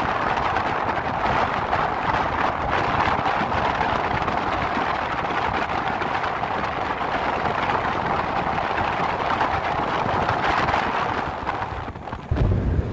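Steady rushing of wind and water past a moving river cruise ship, heard from its deck. About twelve seconds in, wind starts buffeting the microphone with a low rumble.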